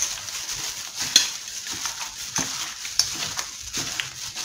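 Raw duck pieces being mixed by a plastic-gloved hand with wet seasonings and sour bamboo shoots in a stainless steel bowl: a steady wet stirring noise with a few sharp clicks as pieces knock against the bowl.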